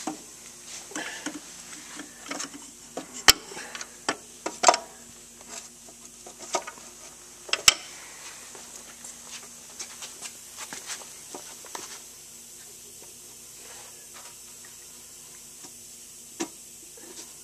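Scattered metallic clicks and clanks as a piston on its connecting rod is handled and guided up from below into a cylinder sleeve of a 1939 Farmall F-20 engine, with two sharp knocks about 3 and 8 seconds in. The handling sounds thin out after about 12 seconds.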